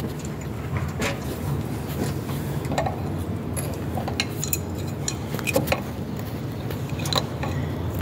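Scattered light metallic clicks and clinks of an adjustable wrench working the braided hose's nut on a chrome angle valve, over a steady low hum.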